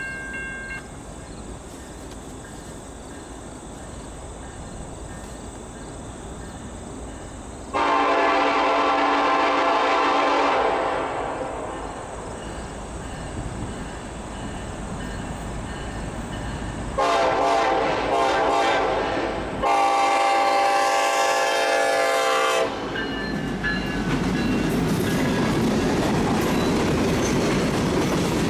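Norfolk Southern freight locomotive's multi-note air horn blowing three long blasts, the usual warning for a grade crossing. In the last few seconds the train's tank cars roll past with a steady rumble and wheel clatter on the rails.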